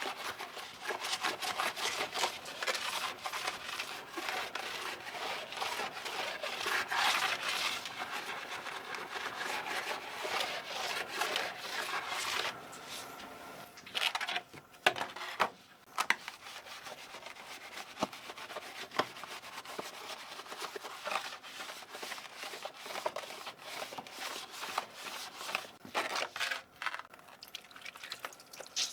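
Keyboard being scrubbed and rubbed during cleaning: a fast, continuous run of rubbing and scraping strokes, broken by a few sharp clicks about halfway through.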